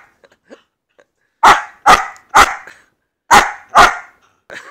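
A young German Shepherd dog barking loudly, five short sharp barks: a quick run of three, then a pause, then two more.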